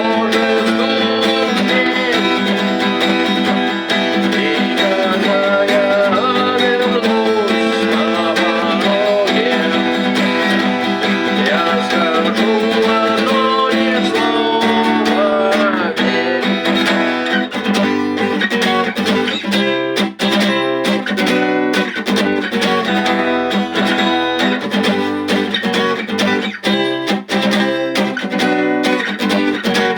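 Rock music led by strummed guitars, with a gliding melody line over the chords for the first half. From about halfway the strumming turns choppy and rhythmic, with short breaks between strokes.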